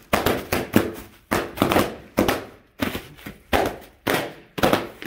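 Plastic air-pillow packing cushions being stomped on and bursting one after another: a string of sharp pops, about two a second, each with a short crackly tail.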